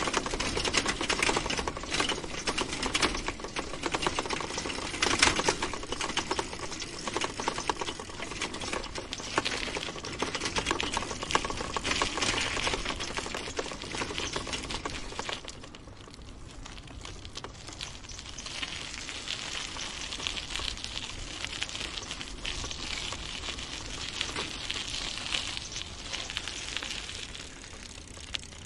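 Bicycle rattling and clattering as it shakes over a bumpy ride: a dense, rapid run of small clicks and knocks, a little quieter from about halfway through.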